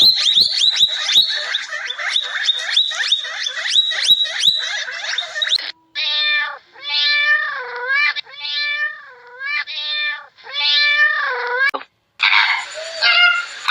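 A rapid run of high chirps and clicks, then a domestic cat meowing five times, each meow about a second long, dipping and rising in pitch. A different, noisier animal sound starts after a short break near the end.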